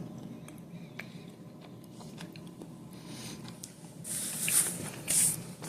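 A person biting and chewing a bite of peanut-butter-filled milk chocolate bar: soft scattered mouth clicks, then two short, louder hissy sounds about four and five seconds in.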